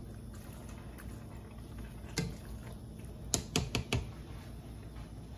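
Pasta server stirring spaghetti through a thick cream sauce in a pot on the stove, with a soft wet patter from the simmering sauce. A sharp click about two seconds in and a quick run of four clicks around three and a half seconds as the utensil knocks against the pot.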